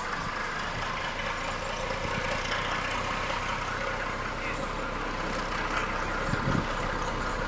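Steady hiss with a low rumble underneath and a couple of dull thumps about six and a half seconds in, typical of a steam locomotive standing in steam.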